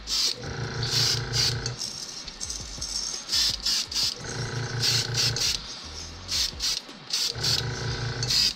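Airbrush spraying a light coat of paint in many short hissing bursts as the trigger is worked on and off. A low hum comes in three times, each for about a second.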